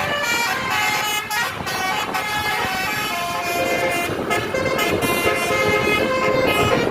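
Multi-tone 'telolet' horn of a tour bus playing a tune of changing notes, with a noisy rumble underneath.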